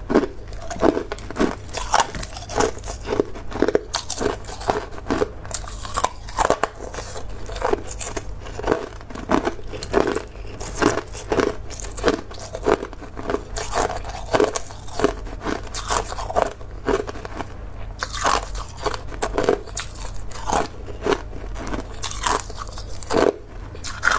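A person biting and chewing hard ice: a quick, continuous run of loud, sharp crunches, about two to three a second.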